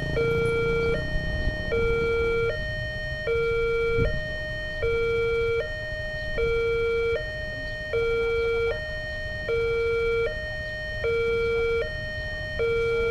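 Electronic warning siren at a railway level crossing, switching back and forth between a higher and a lower tone a little under once a second, over and over. A low rumble runs underneath, and there is a single thump about four seconds in.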